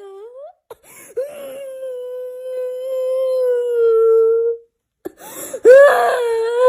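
A person wailing in exaggerated meme-style crying. A short rising cry comes first, then one long held wail that swells and stops about four and a half seconds in, and a second loud wail starts near the end.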